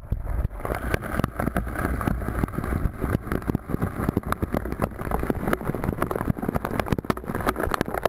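Waterfall spray and falling water striking the camera directly: a dense, irregular crackle of drops hitting the housing over a continuous rushing, with a low rumble.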